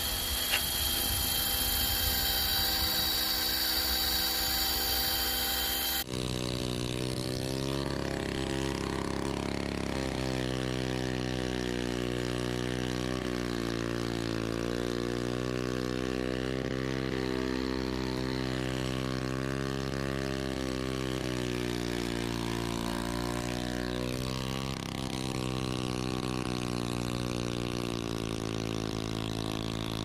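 Small lawn-mower petrol engine on a homemade tracked robot mower running steadily, its pitch dipping briefly and recovering now and then. It is preceded for the first few seconds by a different, noisier machine sound with high steady whining tones, which changes abruptly about six seconds in.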